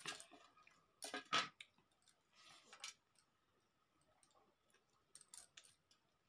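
Fingers mixing rice and curry on a steel plate: a few short, soft scraping and squishing sounds, the loudest about a second in.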